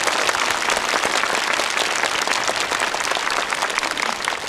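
A large audience applauding: many hands clapping in a dense, steady stream.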